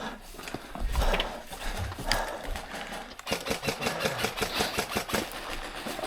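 An airsoft electric gun firing a full-auto burst of about two seconds, rapid even clicks at roughly ten a second starting a little over three seconds in, with a few single sharp clicks before it.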